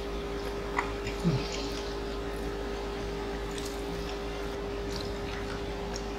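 Close-miked chewing of food, with small wet squishes and clicks of the mouth. A short, falling hum of a voice comes about a second in, over a faint steady hum.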